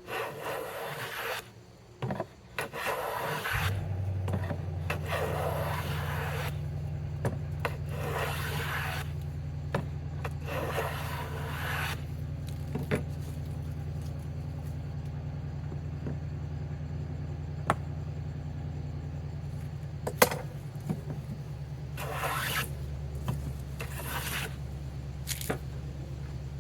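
Long scraping strokes of a hand tool working wood: about six in the first dozen seconds, then a pause, then two more near the end. A steady low hum starts a few seconds in and runs underneath.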